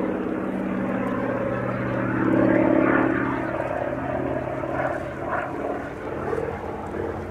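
Hawker Sea Fury T.20's Bristol Centaurus 18-cylinder radial engine and propeller running as the aircraft flies overhead. The sound swells about two to three seconds in, then eases and wavers in pitch as the aircraft turns away.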